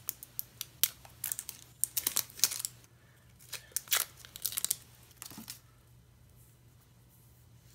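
Packaging of a roll of washi tape being torn open and crinkled: a run of sharp crackles that stops about two thirds of the way in.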